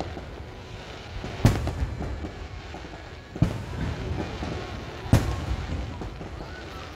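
Aerial firework shells bursting: three loud bangs about two seconds apart, each trailing off in a rolling echo, over a continuous rumble from the display.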